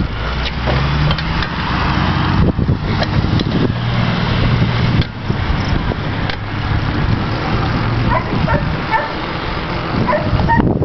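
A heavy emergency vehicle's engine running steadily, its pitch rising briefly about a second in. A dog barks a few times near the end.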